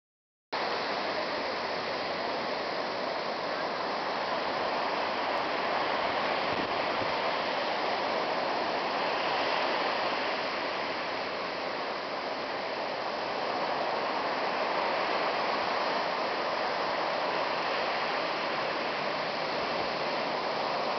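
Ocean surf breaking and washing up the beach, a steady, even rush of waves.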